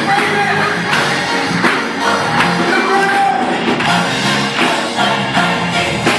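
Gospel choir singing live with band accompaniment over a steady beat.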